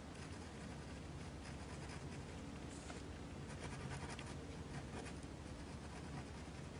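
Faint scratching of a pen on sketchbook paper in short, irregular strokes, drawing spiky lines. A low steady hum runs underneath.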